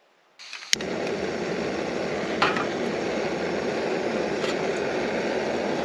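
Near silence, then a sharp click just under a second in, and a steady rushing noise that carries on, with a couple of faint clicks in it.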